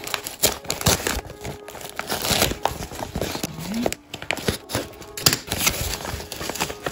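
Newspaper wrapping crinkling and rustling in irregular bursts as hands unfold it and slit it open with a utility knife.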